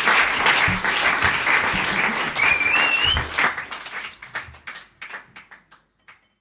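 Audience applauding, with a short rising whistle a little before the middle. The clapping then thins to scattered single claps and dies out near the end.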